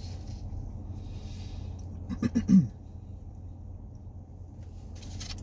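A man clears his throat: one short, loud voiced burst of three quick pulses a little over two seconds in, over a steady low hum.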